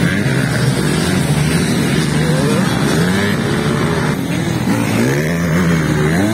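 Several motocross bikes racing round a dirt track, their engines revving up and dropping back over and over as the riders work the throttle and shift gears.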